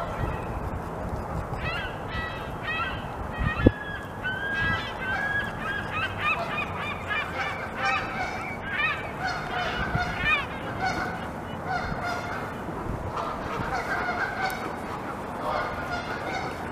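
A chorus of short animal calls, many overlapping and repeated throughout, over a steady background hiss.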